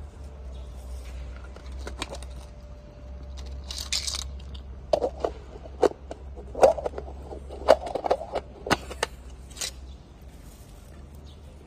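Hollow 3D-printed plastic dragon eggs and an articulated plastic dragon being handled among spider plant leaves: a brief leaf rustle, then a run of light clicks and knocks about five to nine seconds in.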